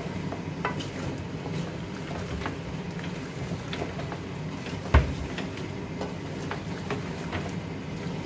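A wooden spoon stirs spiced chicken pieces frying in an aluminium pot, with scattered scrapes and light clicks against the metal over a steady low hum. One sharp, loud knock of the spoon comes about five seconds in.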